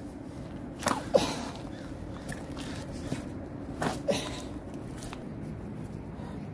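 Two short, sharp breathy grunts about three seconds apart from a man straining to force two stuck-together 360-degree magnet-fishing magnets apart, over a low steady background hum.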